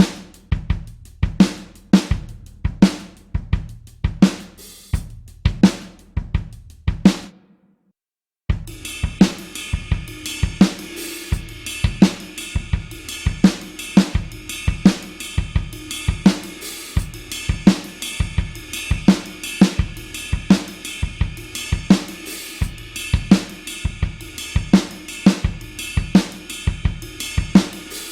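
Rock drum kit beats: kick drum, snare and hi-hat/cymbals in a steady groove. The beat stops for about a second some seven seconds in, then a second beat starts with busier, brighter cymbal wash.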